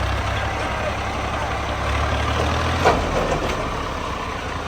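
Massey Ferguson 385 tractor's four-cylinder diesel engine running steadily with a low rumble. About three seconds in there is a single sharp knock, after which the engine note drops slightly.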